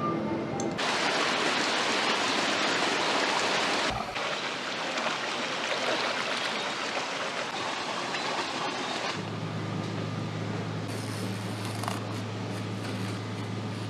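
Rushing stream water for about nine seconds. Then, suddenly, a steady low mechanical hum with a few faint clicks.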